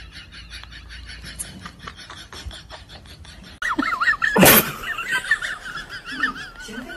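Steady rapid ticking from a cat-shaped pendulum wall clock with a swinging tail. About three and a half seconds in it gives way to a high, wavering whine from a small animal, broken by one short, loud burst of noise.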